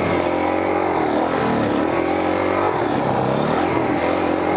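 Suzuki DR-Z400's single-cylinder four-stroke engine running under load while riding, its pitch dipping and climbing again several times as the throttle is rolled off and back on.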